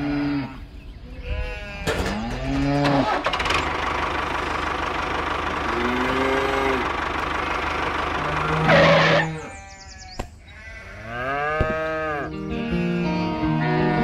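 Added sound effects: short rising-and-falling calls like animal bleats, over a steady noisy hum with a loud hiss about nine seconds in. Background music begins near the end.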